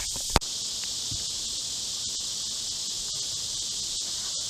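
Steady high-pitched chorus of summer insects. A single sharp click about half a second in is the loudest sound.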